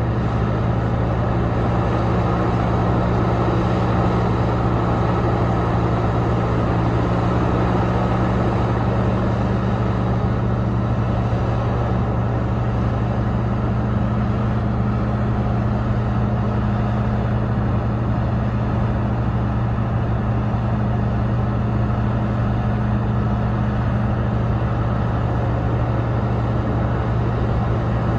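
Heavy diesel engine of mining machinery running steadily: a constant deep drone that holds without a break.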